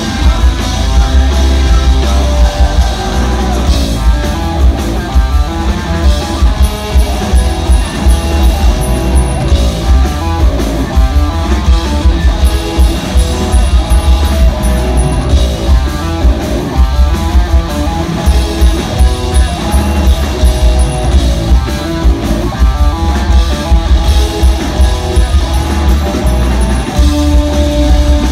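Live heavy-metal band playing loud: distorted electric guitars, electric bass and a pounding drum kit, heard close to the stage.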